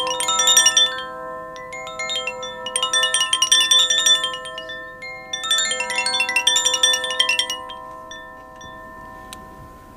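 Sanctus bells (a cluster of small altar bells) shaken in peals at the elevation of the chalice: the end of one peal, then two more peals a couple of seconds apart, each a rapid jangle of high bell strikes with the tones ringing on and fading out near the end.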